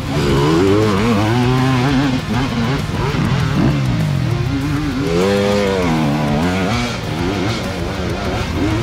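Engine of an off-road vehicle revving up and down again and again as the throttle is worked, its pitch rising and falling in quick swells with the loudest rev about five seconds in.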